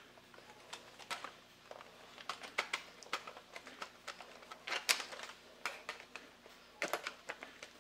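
Irregular clicks and taps of hard plastic as a screwdriver pries and rocks at the seams of a toy robot's plastic body shell while it is handled, the loudest click about five seconds in.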